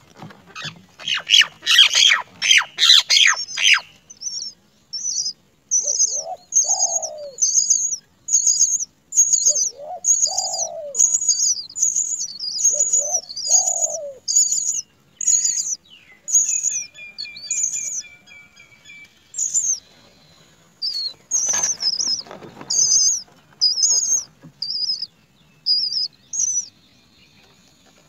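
Great myna nestlings begging in the nest with short, high, repeated calls, about one or two a second. The calls open with a few seconds of rustling and wing flutter as the parent feeds them. A lower two-note call comes three times, a brief rapid trill about halfway through, and another short rustle later.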